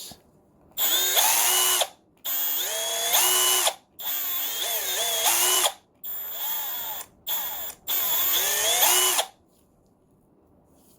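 Milwaukee M12 Fuel brushless right angle impact wrench spinning unloaded in reverse: six separate trigger pulls, from a fraction of a second to about a second and a half each, the motor whine gliding up and down in pitch as the variable-speed trigger is feathered. No impacting is heard, since the anvil turns freely with no load.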